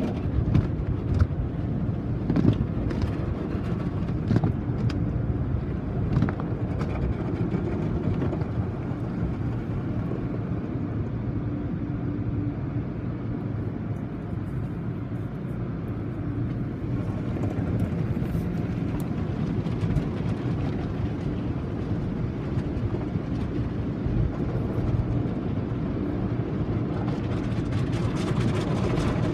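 Automatic car wash heard from inside the car: a steady low rumble of the wash equipment and water spray, with frequent spatters and slaps of water and cloth strips against the glass and body. It eases a little midway and picks up again near the end.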